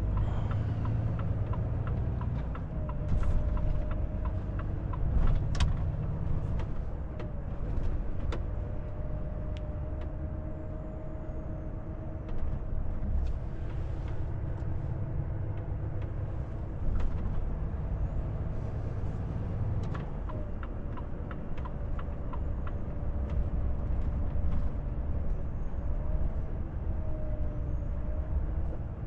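Volvo FH truck driving in town, heard from inside the cab: steady engine and road rumble with a faint whine that shifts in pitch a few times, and frequent sharp clicks and rattles.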